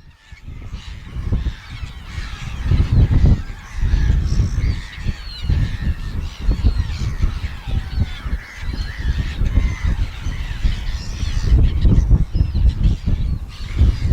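A flock of seagulls calling, many short overlapping cries, over heavy gusts of wind buffeting the microphone.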